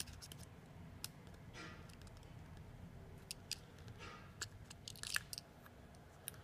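Faint, scattered clicks and short scrapes of small tools and parts inside an iPhone 6 as its loudspeaker module is pried out.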